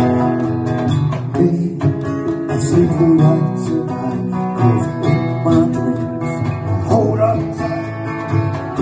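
Live acoustic band: strummed acoustic guitar with a three-string cigar box guitar and a cajón keeping a steady beat.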